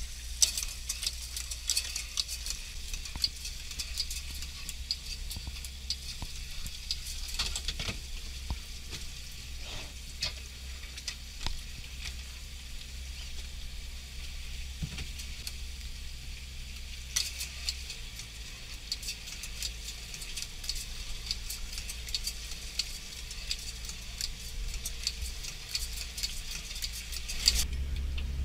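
Fishing boat deck noise: a dense crackling hiss of many small clicks from the line-handling gear and spray, over the low steady drone of the boat's engine. It grows louder near the end.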